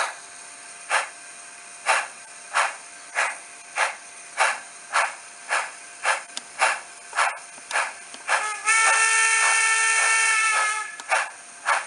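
Recorded steam locomotive sound from a Tsunami heavy-steam sound decoder played through a tiny cube speaker in a temporary styrene enclosure: exhaust chuffs quickening from about one a second to about three a second over a steady hiss, then a steam whistle held for about two seconds about two-thirds of the way through.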